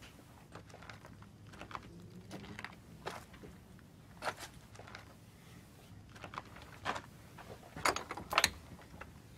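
Scattered soft footsteps and small knocks, then a quick cluster of sharp metallic clicks near the end as a lock on a cellar door is handled.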